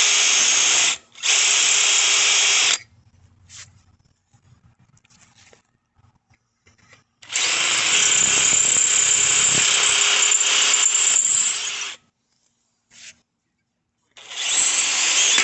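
Cordless power drill boring a hole through the thin metal fender mount of a bicycle, run in three bursts: about three seconds at the start, a longer run of about five seconds in the middle, and another burst starting near the end, with near-quiet pauses between.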